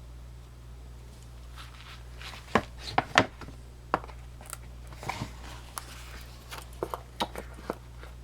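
A Victorinox Damascus Swiss Army pocket knife and its box being handled: a scattered run of sharp clicks and taps, the loudest a cluster a few seconds in, over a steady low hum.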